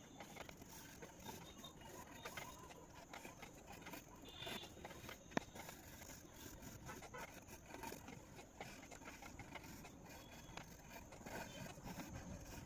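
Faint scratching of a colored pencil on paper in many short, irregular shading strokes, with a single sharp tick about five seconds in.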